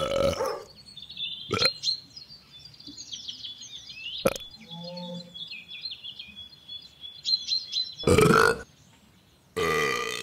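A dog burping: a loud burp right at the start, another about eight seconds in and a third near the end, with birds chirping in the background between them.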